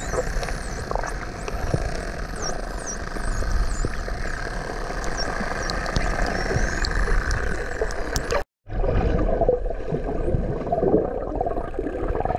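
A pod of bottlenose dolphins whistling underwater: many short, high rising and falling whistles with scattered clicks, over a steady low underwater rumble. The whistles thin out after the sound cuts out for a moment about eight and a half seconds in.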